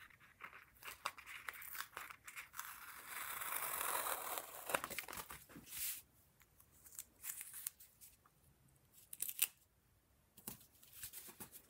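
Masking tape being peeled off a plastic acetate sheet: a long, hissing peel that is loudest a few seconds in. Then comes lighter crinkling and tapping as the tape strip is handled and pressed down onto paper.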